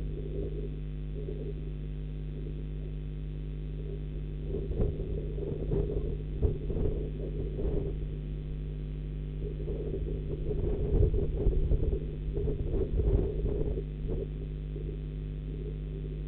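Steady electrical mains hum on a nest-box camera's audio, with irregular low rumbles swelling and fading twice, about four to eight seconds and ten to fourteen seconds in.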